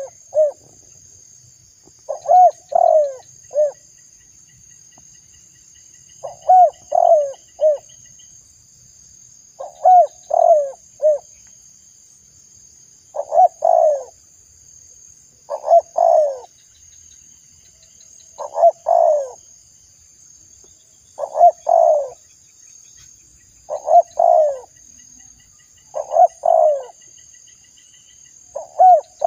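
Spotted dove (tekukur) cooing: a phrase of three or four short coos, repeated about every two and a half to three seconds, with a steady high-pitched hiss behind it.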